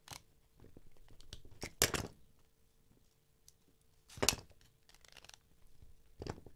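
Small metal clicks and scrapes from a Torx driver working at the pivot of a partly disassembled Benchmade 940 folding knife while the stuck blade is worked loose. A handful of sharp clicks, the loudest about two seconds in and again about four seconds in, over a faint steady hum.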